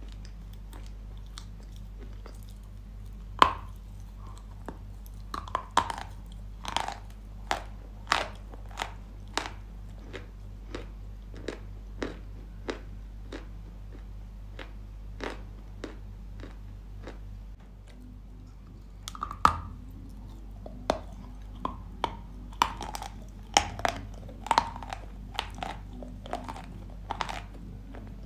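Dry Yampil chalk coated with a chalk paste, bitten and chewed close to the microphone: sharp, irregular dry crunches, coming thick and fast from about 3 to 9 seconds in and again from about 19 to 27 seconds in, with sparser single crunches between.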